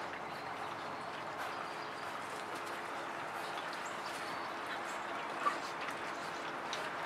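A litter of Vizsla puppies eating mush from a shared pan, a steady wet lapping and smacking with small clicks. About five and a half seconds in, one puppy gives a brief squeak.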